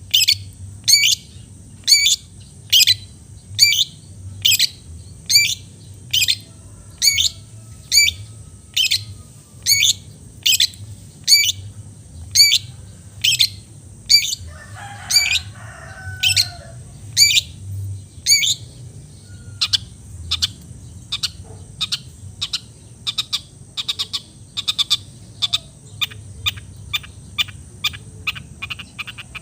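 Long-tailed shrike (cendet) calling in a run of short, sharp, high notes, about one a second. After roughly two-thirds of the way through, the notes come faster, two or three a second.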